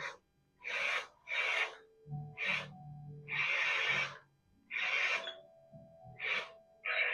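Electronic sound effects from a remote-control robot spider toy's built-in speaker: a run of about six short hiss-like bursts with brief gaps, the longest about halfway through.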